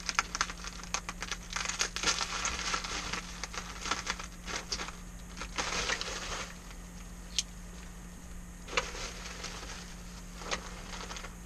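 Bubble wrap crinkling and crackling as it is handled and pulled open by hand: a dense run of crackles for about the first six seconds, then only a few scattered ones.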